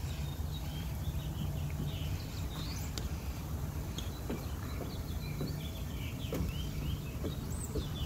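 Small birds chirping repeatedly over a steady low rumble of outdoor background noise, with a few faint knocks.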